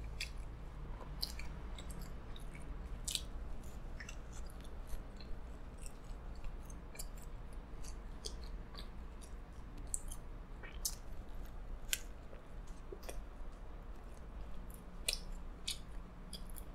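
A person chewing pizza, with soft, irregular clicks and small crunches from the mouth.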